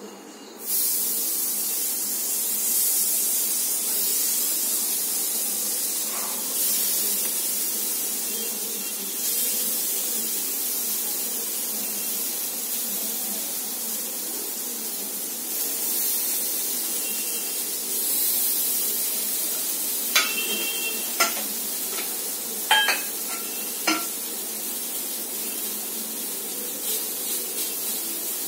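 Marinated paneer tikka skewers sizzling on a hot flat griddle pan (tawa). The sizzle starts suddenly as they go down and swells now and then. A handful of sharp metallic clinks come about two-thirds of the way through.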